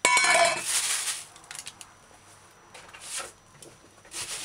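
Stainless steel mixing bowl set down on a countertop, ringing briefly for about a second, followed by a few faint knocks.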